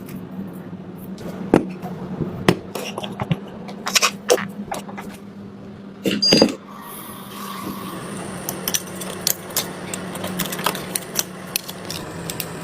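Small tools and phone parts clicking, tapping and scraping during a hand repair of an iPhone, with a louder clatter about six seconds in.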